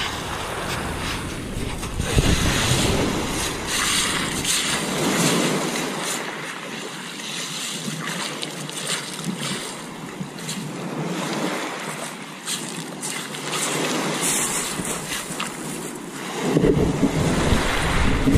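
Rushing wind and surf noise, with wind buffeting the microphone; the deep rumble drops out for most of the middle and returns near the end.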